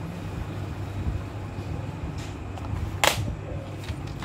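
Plastic audio cassettes being handled, with one sharp click about three seconds in, over a steady low hum.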